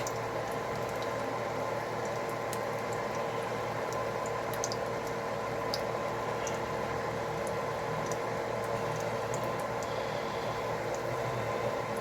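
Pancake batter frying in hot oil in a pan: steady sizzling with scattered sharp pops of spattering grease, which the cook puts down to juice from the cherries.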